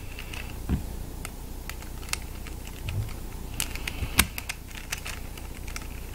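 Plastic pieces of a YJ Yulong 3x3 speedcube clicking and snapping against each other as it is put back together by hand: irregular sharp clicks, the loudest about four seconds in.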